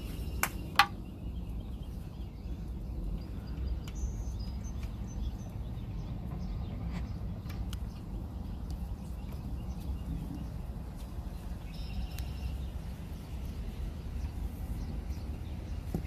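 Steady low outdoor rumble with two sharp clicks just under a second in, the second the loudest, as the compression gauge and its hose are handled. A few faint bird chirps come through, around a quarter and three quarters of the way through.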